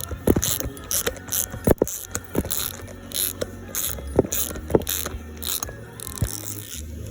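Ratchet wrench clicking in quick repeated strokes, with a few louder knocks, as a broken exhaust manifold stud with weld built up on it is turned out of an LS cylinder head. The stud turns stiffly, which the mechanic takes for cross-threading.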